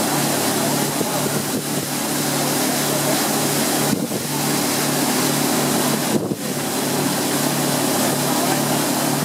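Motorboat engine running steadily at cruising speed, with water rushing and splashing past the hull. The hiss dips briefly twice, about 4 and 6 seconds in.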